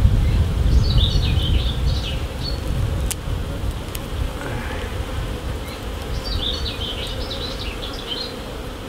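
Honeybees buzzing steadily from an open hive, the colony on the combs humming. High chirps sound twice in the background, about a second in and again near the end.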